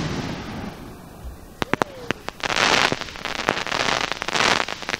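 Aerial firework shells bursting overhead: a loud bang fading out over the first second, a few sharp reports about two seconds in, then two long stretches of dense crackling.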